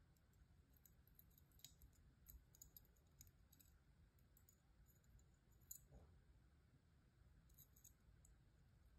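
Faint, light metallic clicks and ticks from stainless split-ring fishing pliers and small hooks being handled, scattered irregularly, with the sharpest tick a little past the middle.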